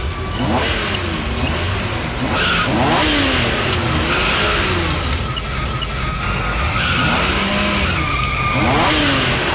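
Sports car engine revving up and down over and over while its tyres spin and squeal against the pavement, with smoke coming off the wheels as it pushes a stuck bus.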